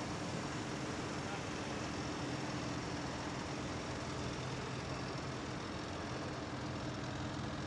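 Diesel tractor engines running steadily as a column of tractors drives slowly past, a low even hum under a wash of engine and street noise.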